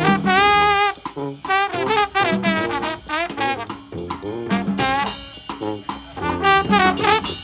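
A street brass band playing an instrumental tune live, horns carrying the melody in wavering held notes over a low bass line.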